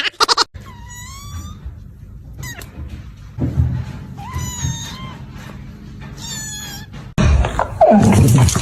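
A cat meowing three times, separate drawn-out calls a few seconds apart. Near the end a louder jumble of noise cuts in suddenly.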